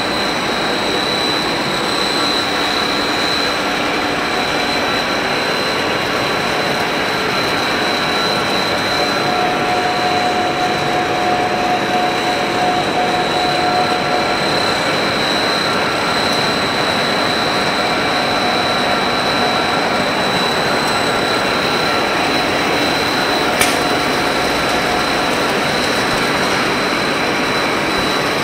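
Plastic pipe extrusion line running: a steady, loud machine noise with a constant high whine over it. A single brief click sounds near the end.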